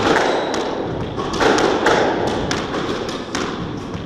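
Squash ball impacts: a quick, uneven run of sharp knocks of ball on racket and court walls, two to three a second, echoing in the hall.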